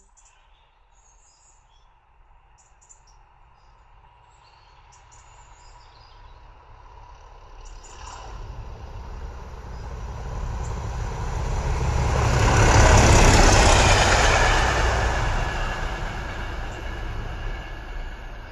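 Class 37 diesel locomotive 37 418, with its English Electric V12 engine, propelling a single saloon coach past. The engine and wheels rumble in from a distance, grow loudest about two-thirds through, then fade as it goes by.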